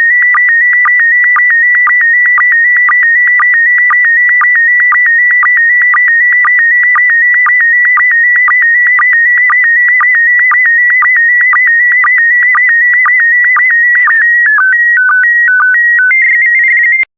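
Slow-scan television (SSTV) image signal in PD120 mode: a loud, high warbling tone broken by regular short dips to a lower sync tone, one per scan line. Near the end it steps between a few lower and higher steady tones, then cuts off suddenly as the image transmission finishes.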